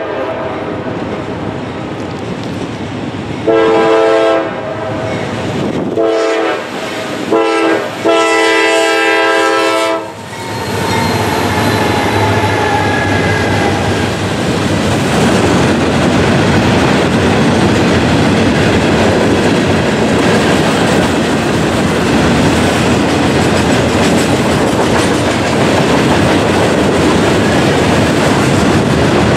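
Norfolk Southern freight locomotive's air horn sounding the grade-crossing signal about four seconds in: two long blasts, a short one and a final long one. Then the loaded steel-coil train passes close by, a loud, steady rumble and clatter of the cars rolling over the rails.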